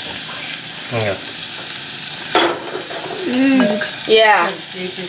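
Curry base frying in oil in a clay pot, sizzling steadily as it is stirred, on its way to golden brown. A voice speaks over it in the second half.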